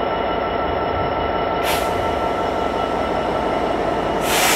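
Class 66 diesel-electric locomotive rolling slowly past, its two-stroke V12 diesel engine running, with a steady high-pitched whine running over the rumble. Two short hisses break in, about one and a half seconds in and near the end.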